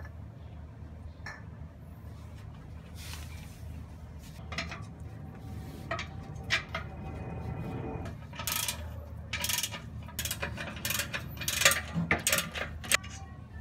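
Breaker bar and 19 mm socket clinking and clicking on the catalytic converter's exhaust flange nuts as they are loosened: a run of sharp metallic clicks and knocks that starts about four seconds in and grows denser and louder in the second half, over a low steady hum.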